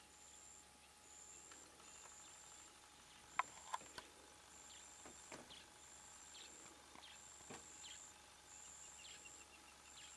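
Faint outdoor ambience: a high, thin call repeats in short pulses about half a second long, over faint scraping. Three sharp clicks about three and a half seconds in are the loudest sounds.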